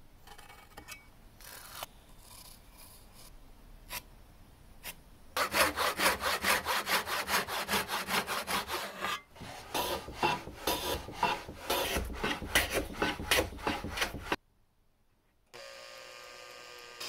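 Brass-backed tenon saw cutting through a wooden board in quick, even back-and-forth strokes, after a few light starting strokes. The sawing stops abruptly, and after a second of quiet a power drill runs steadily, boring a dowel hole through a doweling jig.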